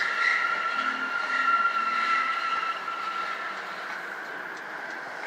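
Volvo's tyres squealing on a polished concrete floor as the car is driven fast through a turn, heard from inside the cabin: one long high squeal that fades away over about four seconds.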